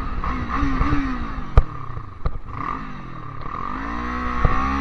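Kawasaki Z400 parallel-twin motorcycle engine, its note falling and wavering as the bike slows, then rising again near the end as it accelerates. Sharp clicks sound once or twice around the middle and once more near the end.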